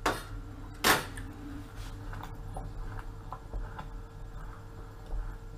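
A wooden spoon knocks twice against a stainless steel pot of thick potato soup, the first knock right at the start and the second about a second in. Faint scattered ticks and light clicks follow as the soup is stirred, over a steady low hum.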